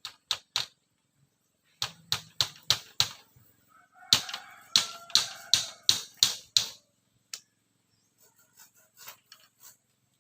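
Repeated sharp blows on bamboo during coop building, in quick runs of three to eight strikes with short pauses between, fainter toward the end.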